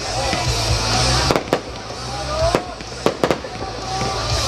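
A fireworks display with aerial shells bursting in several sharp bangs over a continuous hissing, crackling haze.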